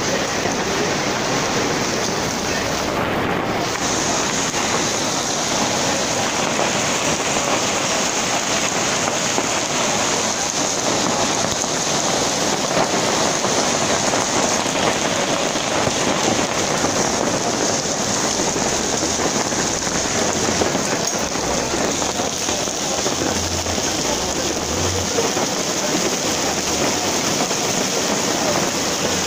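Heavy rain pouring down steadily onto a wet street, a dense even hiss of falling water.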